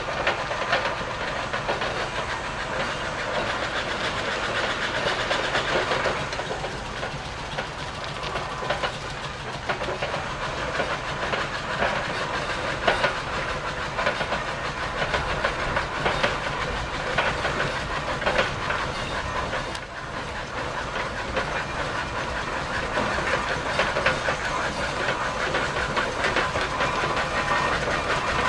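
Steam road roller driving slowly, its engine chuffing and hissing steam in a steady run of beats, with more steam engines following close behind.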